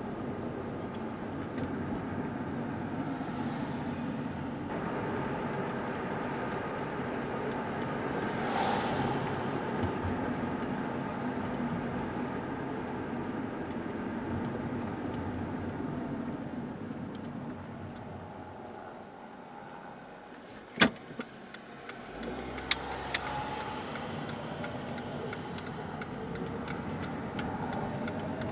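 Car driving, heard from inside the cabin: steady engine and tyre noise that eases off about twenty seconds in. A few sharp clicks come late on, then a run of faint regular ticks.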